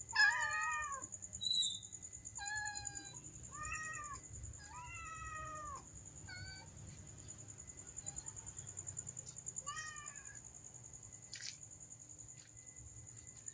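Domestic cats meowing to be fed, a mother cat and her kitten. There are about six meows, most of them in the first half, the longest drawn out, and one more about ten seconds in.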